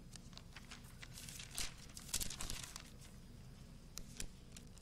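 Bible pages being turned and leafed through on a lectern: a few soft paper rustles and crinkles, the loudest about two seconds in.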